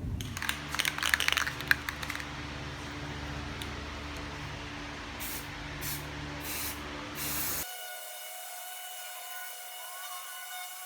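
Aerosol spray can rattling for a couple of seconds, then a steady hiss with several short spray bursts, as primer and paint go on the toolbox. The sound cuts off abruptly near the end, leaving a faint steady whine.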